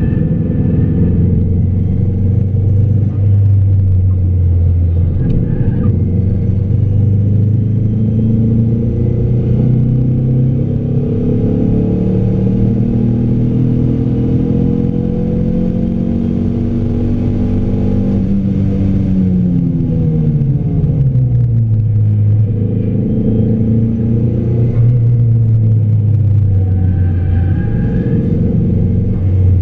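A car's engine heard from inside the cabin under hard track driving. It pulls with a slowly rising pitch for about ten seconds down a straight, drops over a few seconds as the car slows for a corner, and picks up again near the end.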